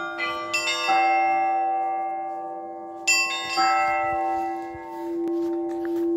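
Church bells of a monastery bell tower ringing. Several strikes of different pitch land close together in the first second and two more come about three seconds in, each leaving long ringing tones over a steady low hum.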